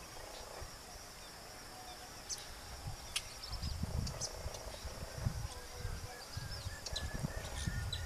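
Wetland ambience: a steady high insect hum under scattered short, high bird chirps. From about three and a half seconds in, low rumbling bumps sound on the microphone.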